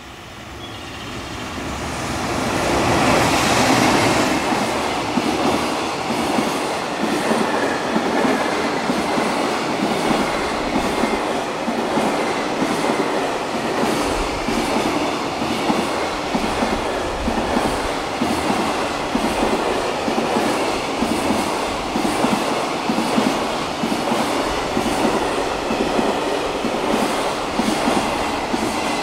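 Freight train hauled by an EF210 electric locomotive passing through a station, growing louder over the first few seconds, then a long run of wagon wheels clattering rhythmically over the rail joints.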